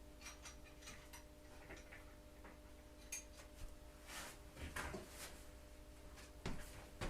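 Irregular light clicks and metallic clinks of hand tools working on a motorcycle, with a few louder knocks about four to five seconds in and again about six and a half seconds in.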